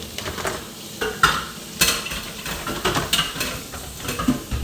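A utensil stirring food in a cooking pot, knocking and scraping against the pot in a string of irregular clinks.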